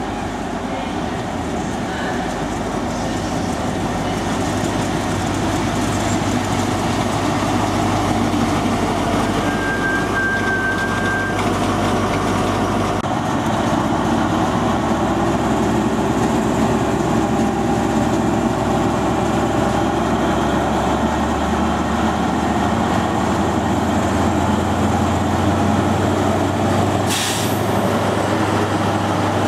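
Class 43 power car of an InterCity 125 (HST) running its diesel engine as the train draws slowly along the platform, growing louder as the power car comes close. There is a brief high squeal about ten seconds in and a short hiss of air near the end.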